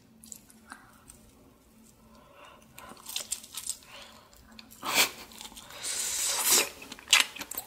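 Close-miked mouth sounds of biting into a grilled sausage skewer: nearly quiet for the first couple of seconds, then soft wet clicks, a sharp bite about five seconds in and a longer crunchy, tearing bite around six seconds, with chewing clicks near the end.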